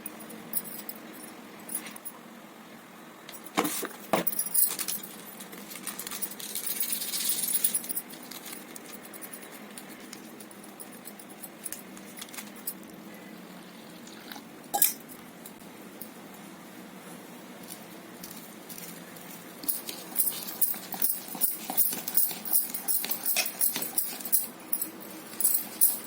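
Scattered clinks of kitchen utensils, then about twenty seconds in a fast, regular clinking of a mixing tool beating gram-flour bajji batter in a bowl.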